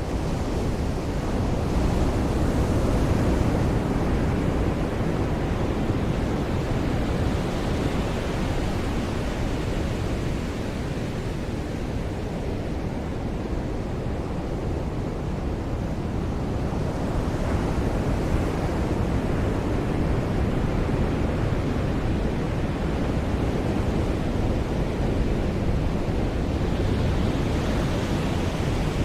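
Ocean surf breaking and washing on a beach, a steady deep rush that swells and eases slowly as waves come in, with some wind on the microphone.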